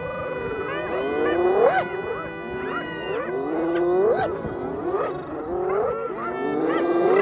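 A chorus of hyenas whooping: rising calls from several animals, overlapping and repeating about once a second.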